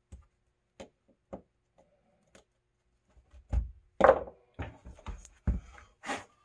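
A few faint clicks of needle-nose pliers on the sash, then from about three and a half seconds in a run of knocks and clunks as the vinyl window sash is handled and lifted on a wooden workbench. The loudest knock comes about four seconds in.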